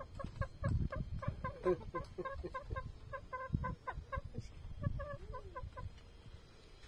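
Chickens clucking: a run of quick, short, repeated clucks, several a second, that dies away about six seconds in. Low thumps sound underneath the clucking.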